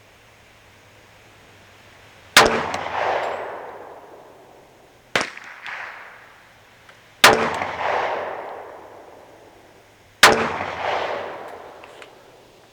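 Four single shots from a 9mm Black Rain Ordnance Glock-clone pistol, fired slowly two to three seconds apart, each with a long echo dying away. The second shot is weaker than the others.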